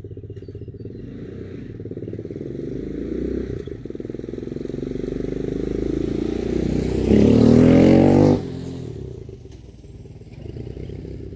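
250cc water-cooled Chinese quad bike's engine approaching, then passing at full throttle with revs rising about seven seconds in, and fading as it moves away. It is the stock run, floored with the throttle limiter screw still fitted.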